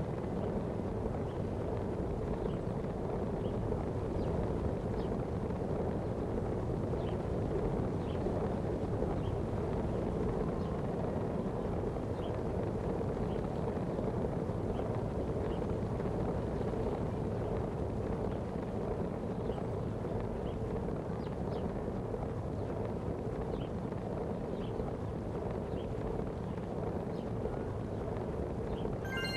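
Steady wind rushing over the microphone with a low rumble underneath, as from moving at speed outdoors, with faint high ticks now and then.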